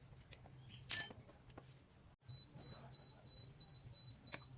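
A high-pitched electronic beeper sounding evenly about three times a second, starting about two seconds in, after a single sharp click about a second in. A faint low hum runs underneath.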